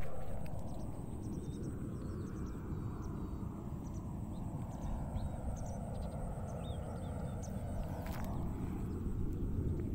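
Outdoor ambience: a steady low rumble of wind on the microphone, with birds chirping throughout.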